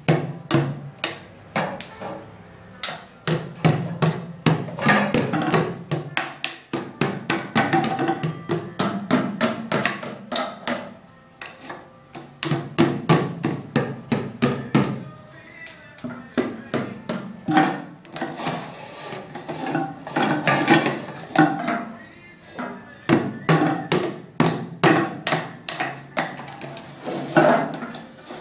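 Drumsticks beating on the plastic lids of empty powdered-formula cans used as a toy drum kit: fast, uneven strikes in bursts, with short pauses.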